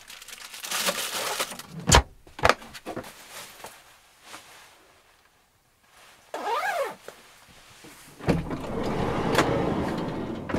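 Handling sounds in a campervan: rustling, then the lid of a Dometic compressor fridge shut with a sharp knock about two seconds in. A short zip about six and a half seconds in, then the van's sliding side door opened, bringing in a steady rush of outdoor noise for the last couple of seconds.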